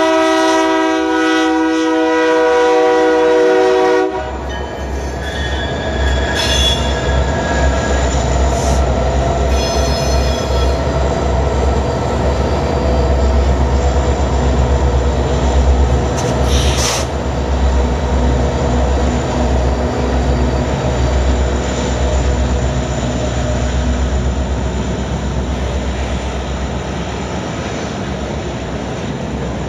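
BNSF diesel freight locomotive's air horn sounding a long multi-note blast that cuts off about four seconds in, then the deep rumble of the locomotives passing close by, with brief high wheel squeals. Near the end the freight cars roll past.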